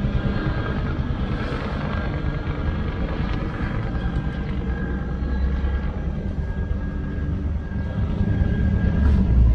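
Helicopter flying overhead: rapid rotor blade chop with a steady high whine over it, growing a little louder near the end.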